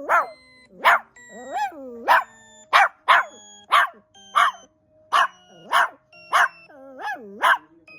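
A puppy barking sharply and repeatedly, about a dozen short barks, mixed with a couple of wavering, rising-and-falling whiny grumbles, as it scolds a strange sound. Steady ringing tones that change pitch run between the barks.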